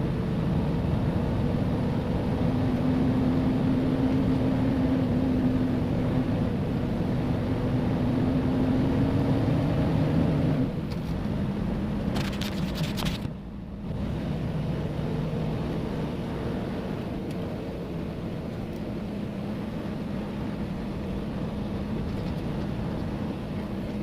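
Diesel semi truck engine pulling under load, its pitch climbing slowly and then dropping about ten seconds in at a gear change. A quick run of clicks follows, and the engine settles to a steady lower pitch.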